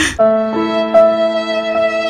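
Slow, sad background music of long-held bowed string notes over a low sustained note, a higher note joining about half a second in.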